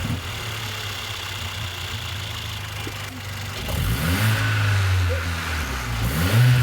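Mercedes-AMG A45's 2.0-litre turbocharged four-cylinder engine idling, then revved up twice in the second half, its pitch rising each time.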